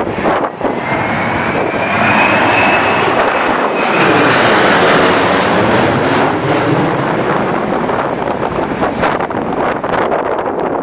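Airliner passing close by as it comes in to land. A high engine whine runs over the first few seconds, the engine rush is loudest about four to six seconds in, then it fades. Strong wind gusts buffet the microphone.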